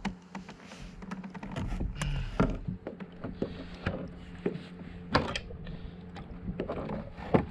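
Scattered knocks and clicks of fishing tackle being handled against a plastic sit-on-top kayak, over a faint steady hum.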